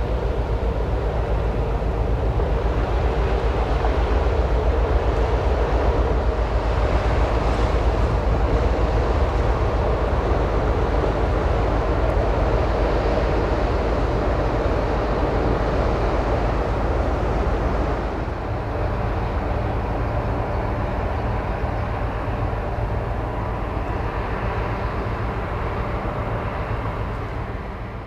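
Container ship passing close by, its engines and onboard machinery giving a steady deep drone with a constant hum. It fades out at the very end.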